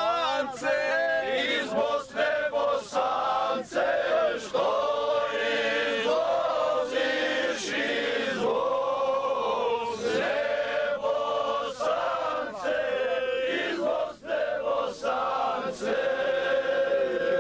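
A group of men singing together, the voices holding long drawn-out notes.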